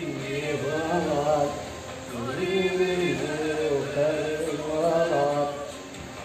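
A solo voice singing a slow Kurdish song in long, wavering phrases over a steady low tone. The phrase falls away near the end.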